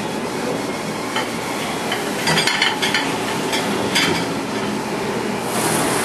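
Clinking and clattering of plates and the dish rack in the stainless-steel wash chamber of a 1971 Hobart AM-9 commercial dishwasher, a burst of clinks about two seconds in and another near four seconds, over a steady hiss.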